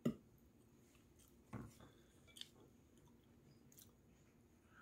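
Quiet eating at the table: chewing, with a few light knocks and clicks of a wooden spoon and chopsticks against ceramic bowls, the sharpest right at the start and a softer one about a second and a half in.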